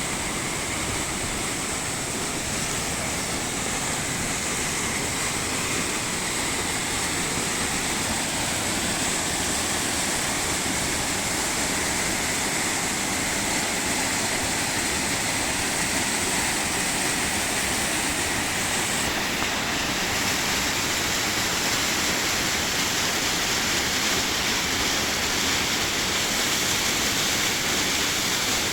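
Waterfall on a creek: a steady, unbroken rush of falling water.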